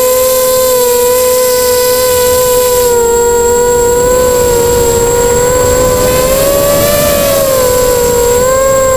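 Eachine 250 racing quadcopter in flight, its brushless motors and propellers making a loud, steady whine that wavers in pitch with the throttle and climbs briefly about seven seconds in, with a thin, constant high tone above it.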